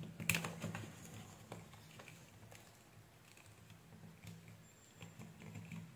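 Faint clicks and light knocks of multimeter test leads and probe clips being handled and clipped onto a small power-supply circuit board, most in the first second and a half and sparser after that, over a low steady hum.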